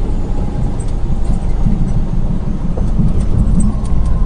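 Low, steady rumble of a moving vehicle's engine and road noise.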